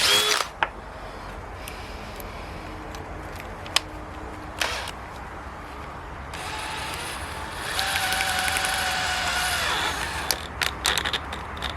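DeWalt DCD795 cordless drill running with a steady whine for about four seconds in the second half, getting louder partway through, after a few seconds of scattered clicks and handling knocks.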